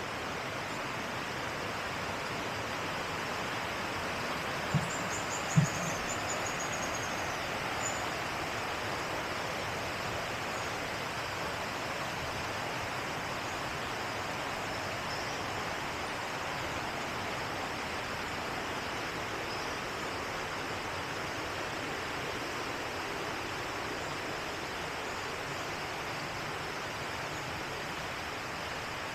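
Steady rushing of a flowing river. Two short thumps come about five seconds in, and a bird gives a brief high trill.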